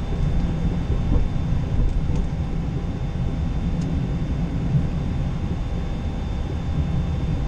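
Cockpit noise of a Boeing 737-800 taxiing: a steady low rumble with a faint, steady high-pitched whine.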